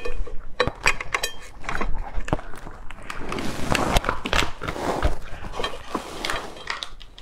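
Raw crab's shell being pried and pulled apart by hand: a run of sharp cracks and crackles, densest near the middle as the top shell comes away from the body.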